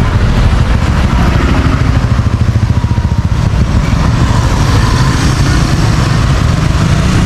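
Street traffic dominated by motorbike engines: a steady low engine rumble with a rapid flutter a couple of seconds in.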